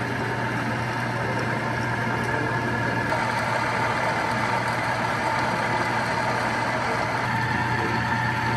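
Metal lathe running steadily, turning a part down to diameter: a continuous, even machine hum with a steady higher whine.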